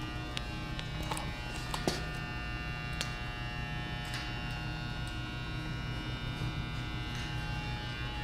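Steady electrical buzzing hum of many fixed tones, with a few faint clicks in the first half.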